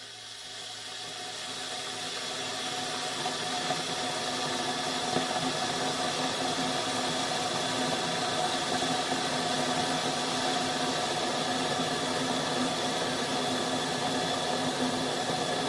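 A steady rushing noise with a few faint steady hum tones in it. It fades in over the first few seconds, then holds level.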